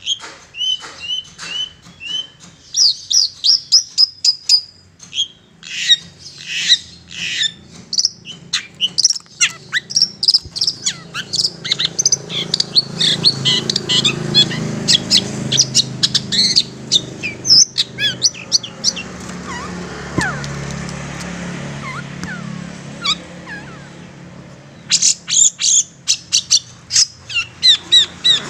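Long-tailed shrike calling: rapid runs of sharp, short, harsh high notes in bursts, thinning out past the middle and picking up again in a fresh burst near the end.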